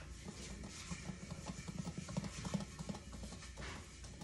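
Lidded stainless pot of oil and popcorn kernels being handled on a gas stove burner: quick irregular clicking and rattling of metal on metal.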